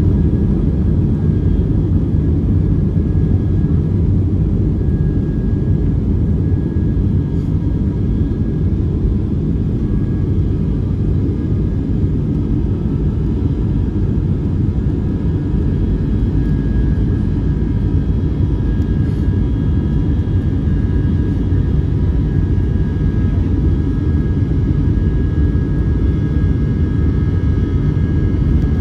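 Boeing 757-300 jet engines at low taxi thrust, heard from inside the cabin over the wing: a steady low rumble with a faint steady whine above it.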